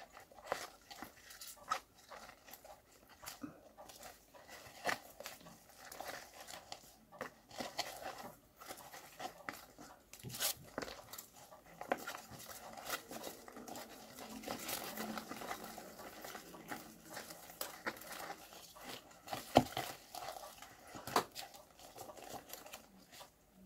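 Irregular rustling, crinkling and small knocks of hands handling a plant and potting soil while repotting it.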